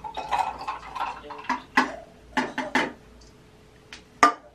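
Sharp clinks and knocks of a drinking glass and a drink can being handled on a table, a cluster of them in the middle and the loudest single knock near the end as the can is set down.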